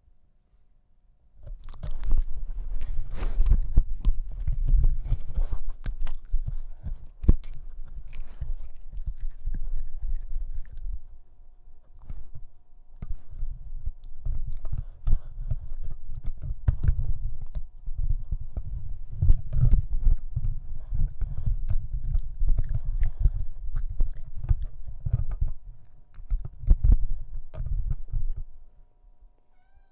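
Boston Terrier puppy chewing and gnawing a black cord and the gadget on its end, making dense clicks over low rubbing thumps. The chewing pauses briefly about midway and stops shortly before the end.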